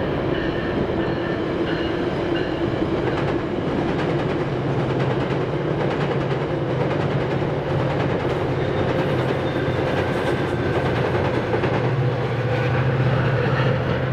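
Virginia Railway Express bilevel commuter train crossing a railroad trestle overhead: a steady rumble of wheels on the rails with clickety-clack. A low hum grows stronger near the end.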